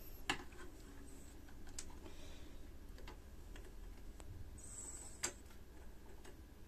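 Small scattered clicks and taps of electronic components and a circuit board being handled on a workbench, with two sharper clicks, one just after the start and one about five seconds in.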